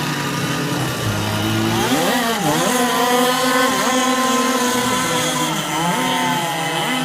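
Several RC race boats' small two-stroke engines running together, revving up and down so their pitch rises and falls, as the boats circle in the minutes before a race start.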